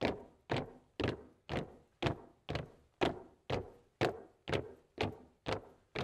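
A steady beat of knocks, about two a second, each one short and dying away quickly.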